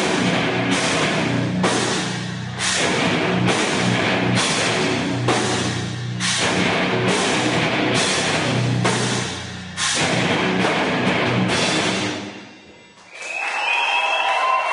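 Live heavy metal band playing loud drums and distorted guitars with a heavy, pulsing beat. The song stops about twelve seconds in, and crowd noise with high wavering cheers follows.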